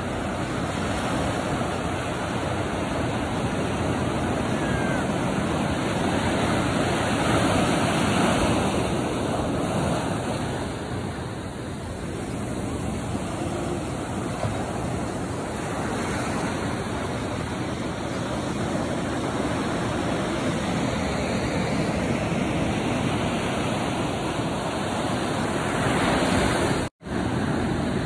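Small ocean waves breaking and washing up over a sandy beach, a continuous surf wash that swells and eases as each wave comes in and draws back. The sound drops out for an instant near the end.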